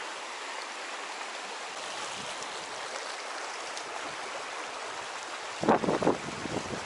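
Shallow river riffle rushing steadily over stones. Near the end, a few short gusts of wind buffet the microphone.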